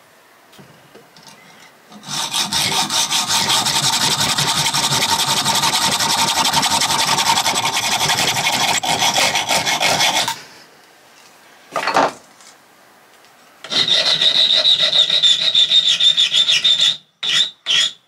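Hacksaw cutting through a thin steel threaded rod clamped in a bench vise, in fast steady strokes for about eight seconds. After a short pause, a hand file rasps across the cut end of the rod, first continuously and then, near the end, in separate strokes about two to three a second.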